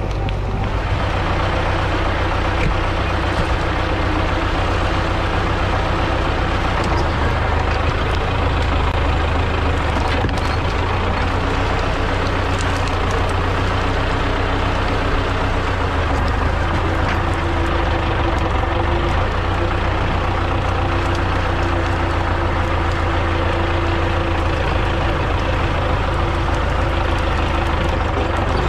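MTZ-82 tractor's four-cylinder diesel engine running steadily at a constant pitch, with light rattles over the top.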